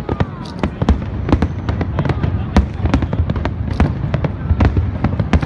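Aerial firework shells bursting in rapid, irregular succession: sharp bangs, several a second, over a continuous low rumble of overlapping explosions.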